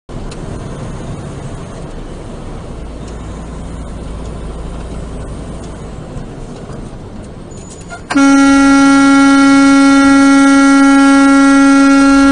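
Road noise inside a moving, loaded truck, then about eight seconds in a long, steady truck horn blast begins and holds, a warning at a truck pulling out across its path.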